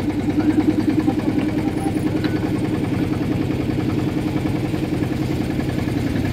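A small engine running steadily at an even speed, with a fast, regular firing beat.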